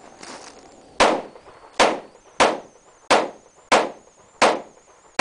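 Pistol shots: a steady string of seven single shots about two thirds of a second apart, starting about a second in, the last one right at the end.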